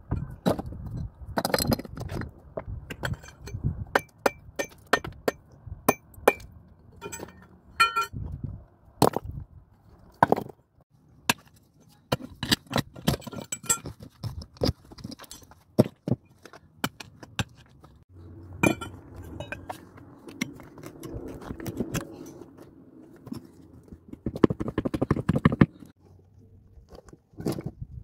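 Loose stones knocking and clinking against each other as they are lifted and moved by hand, in many sharp separate clacks with a short ring. Two longer stretches of gritty scraping, as rubble shifts and slides, come about two-thirds of the way in and again near the end.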